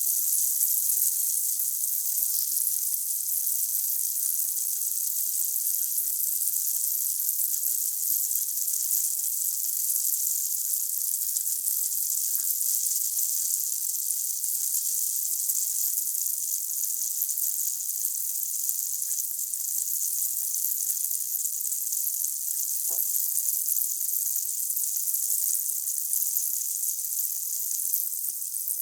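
Calcium tablet dissolving in a glass of water: steady, high fizzing of many small bursting bubbles, with an occasional faint pop.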